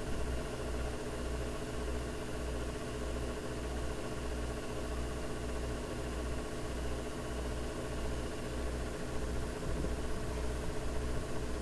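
Steady hum of a running machine, with a low throb pulsing at an even rate and a faint steady tone above it.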